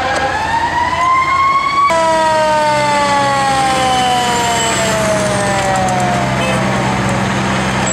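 Fire truck siren rising in pitch, then after an abrupt cut a long falling wail as the siren winds down over a few seconds, with the truck's engine running low and steady underneath.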